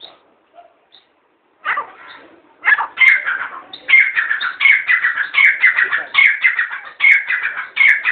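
Grey francolin calling: a loud run of rapid, harsh repeated notes that starts about two seconds in and carries on without a break.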